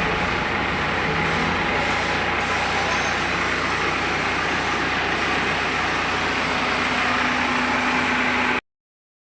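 Heavy machinery running steadily, an even mechanical drone with a low hum, which cuts off abruptly near the end.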